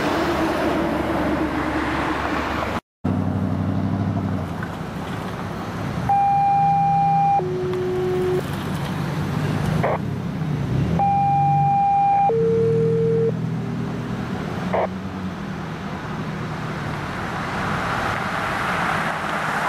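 Road traffic with a heavy vehicle's engine idling close by. Twice, a steady high electronic tone held for about a second steps down to a lower one, and there are two short sharp knocks.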